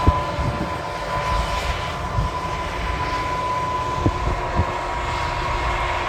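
Large farm tractor running steadily under load while pulling an air seeding drill: a low engine rumble with a steady high whine over it, and a few short knocks about four seconds in.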